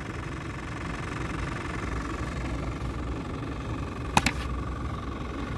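Steady hum and whine of a small electric motor, with a quick double click about four seconds in.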